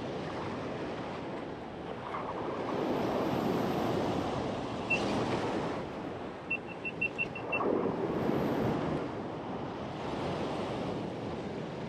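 Ocean swell breaking and washing over a rock ledge in surges, with wind on the microphone. About halfway through comes a brief run of light ticks.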